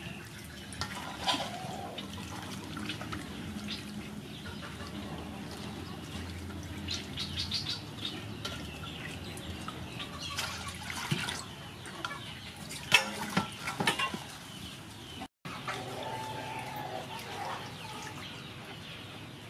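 Water splashing and dripping as lettuce leaves are swished by hand and lifted out of a metal basin of water, with a few sharper splashes in the middle.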